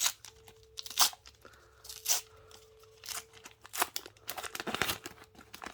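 A trading-card flow pack's wrapper being torn open: a series of short sharp rips about a second apart, with crinkling and a quicker cluster of rips near the end.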